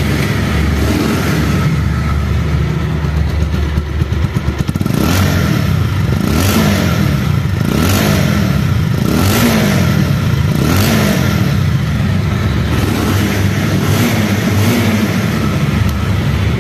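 Bajaj Pulsar motorcycle's single-cylinder engine running just after starting, at first steady, then revved again and again from about five seconds in, each blip rising and falling roughly every second and a half. It runs smoothly, a sound the seller rates as like new.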